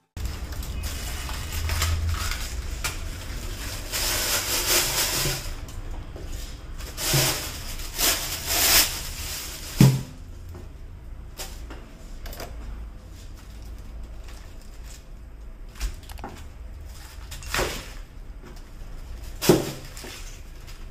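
Kitchen handling noises over a low steady hum: a plastic bag rustling in several spells during the first half, a few sharp knocks on a wooden cutting board, and a knife starting to cut into a head of cabbage near the end.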